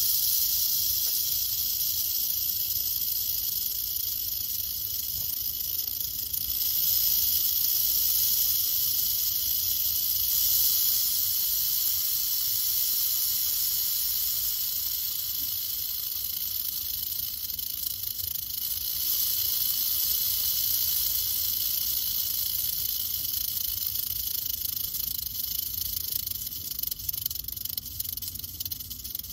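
Western diamondback rattlesnake (Crotalus atrox) rattling its tail without a break, a steady high, dry buzz, the snake's warning signal. It swells a little about a quarter of the way in and wavers near the end.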